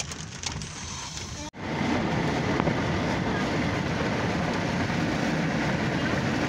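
Steady road and wind noise of a vehicle driving in the rain, heard from inside. After a cut about a second and a half in, it becomes much louder and fuller.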